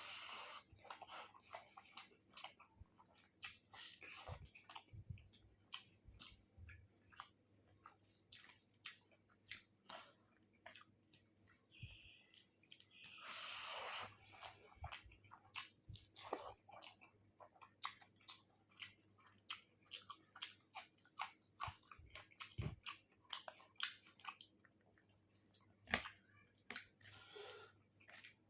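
A person eating chicken curry with rice, close to the microphone: a steady run of wet chewing, smacking and mouth clicks, with a longer, louder noisy stretch about halfway through.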